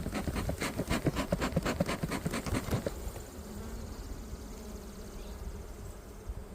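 Honeybees buzzing around an opened hive, a faint steady hum. For the first three seconds, rapid irregular knocking and rustling sits on top of it, then stops.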